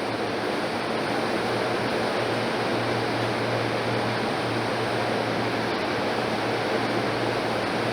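Steady hiss with a low hum from a stopped electric commuter train idling at the platform, its air-conditioning and auxiliary equipment running; the hum drops out briefly a few times.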